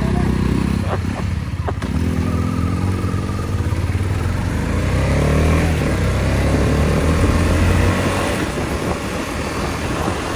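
Motorcycle engine pulling away and accelerating, its pitch rising several times as it climbs through the gears, the longest rise lasting a few seconds before easing near the end, with wind and road noise underneath.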